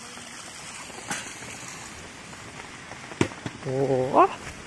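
Steady rain hissing down. About three seconds in there is a sharp click, and just after it a person makes a short vocal sound that rises in pitch.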